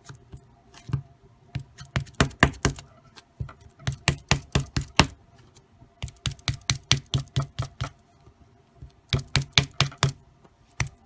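Quick runs of light taps, several a second, in about four bursts with short pauses, as a lump of Play-Doh is patted and pressed into a rectangular block on a wooden tabletop.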